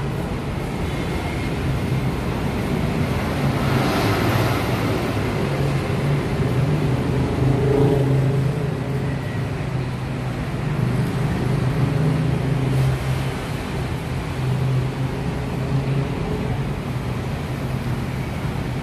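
Steady road traffic noise from a busy multi-lane avenue, with a low engine hum throughout and a louder swell about four seconds in, as of a vehicle passing close by.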